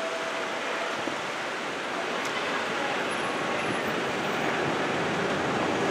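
Steady wash of road traffic noise, growing slightly louder toward the end.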